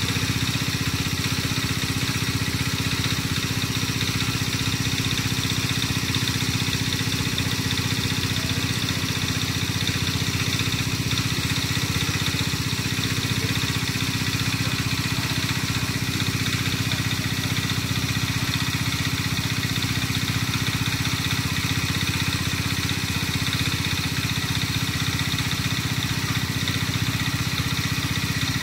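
A small engine running steadily at one constant speed, with no change in pitch or level.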